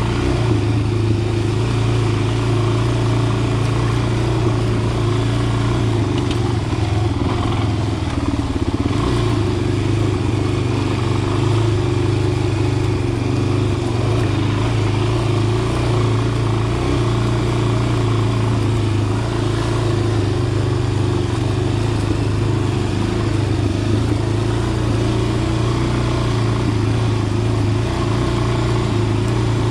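Dirt bike engine running at low, fairly even revs while it rides a trail, with no big revving or stops.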